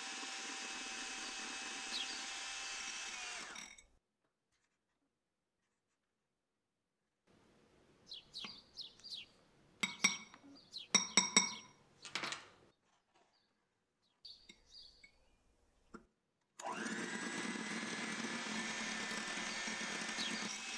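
Electric hand mixer running steadily with its twin beaters whipping a foamy mixture in a glass bowl. It stops about four seconds in. After a pause there are several sharp clinks and taps of a spoon against the glass bowl as powdered erythritol is added. The mixer starts up again near the end.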